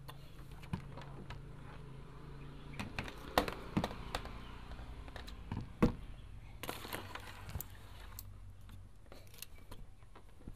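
Handling clatter: a plastic heat gun and its cord being picked up, moved and set down on a wooden plank table, giving scattered clicks and knocks, the sharpest about six seconds in, with a brief rustle just after. A low steady hum runs under the first few seconds.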